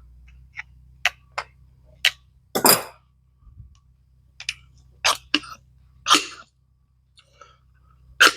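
SU carburettor piston being lifted and let drop in its dashpot, with no oil or spring fitted, giving about ten sharp clicks at uneven intervals as it lands. This is a piston-drop check of jet centring, and the piston is not dropping as smoothly as it should.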